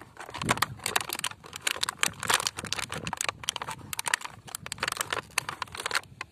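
Rapid, irregular crinkling and clicking of plastic toy packaging being handled and opened.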